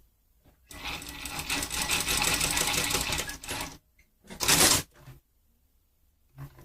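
Sunstar KM 235-AS industrial computerized sewing machine running for about three seconds at a steady, rapid stitch rhythm, then stopping; about a second later comes one short, louder mechanical clatter.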